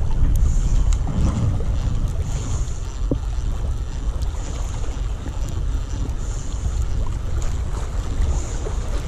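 Wind buffeting the microphone: a steady low rumble, with a few faint small clicks on top.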